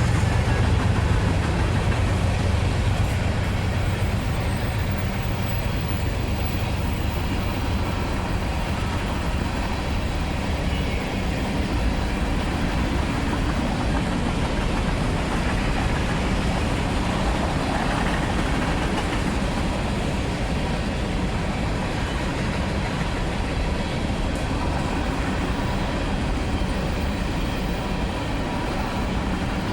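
Train passing close by. It is loudest at the start, then settles into a steady rumble and rattle of the cars rolling past.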